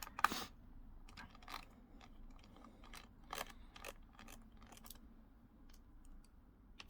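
Faint, scattered clicks and light scrapes from small objects being handled, with the sharpest click right at the start.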